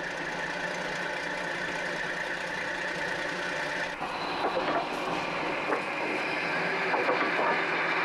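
Fishing boat's engine running steadily under deck noise. From about four seconds in come irregular clanks and rattles of the anchored net gear being set.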